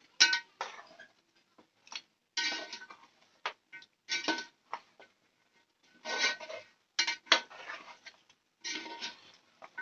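A metal spoon scraping and knocking against a metal cooking pot as mutton pieces in thick masala are stirred, in irregular strokes, with the pot ringing the same tones on each stroke. The loudest knock comes just at the start.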